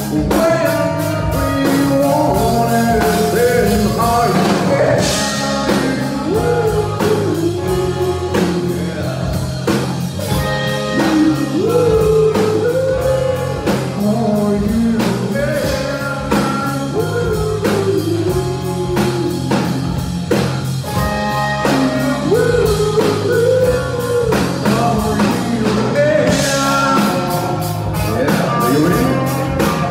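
Live rock band playing: a male lead vocal sung over electric guitar, bass and a drum kit. The cymbals swell up about five seconds in and again near the end.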